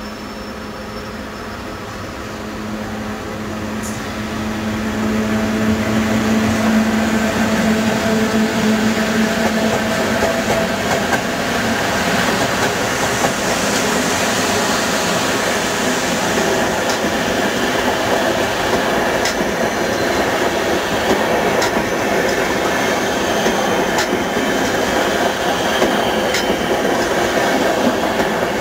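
Electric locomotive-hauled passenger train passing at close range. A steady hum grows louder over the first few seconds, then gives way to the rushing rumble of coaches rolling by, with occasional sharp clicks of wheels over rail joints.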